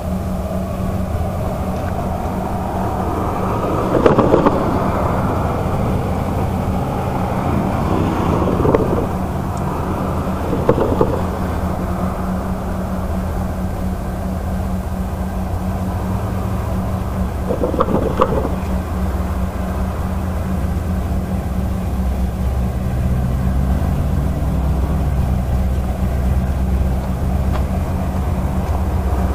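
Diesel locomotives of an approaching freight train running in the distance: a steady low rumble and hum, with a few brief louder noises along the way.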